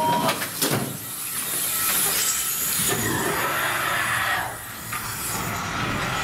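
Ghost-train dark-ride car running along its track with a steady, noisy rumble, and a brief clatter about half a second in.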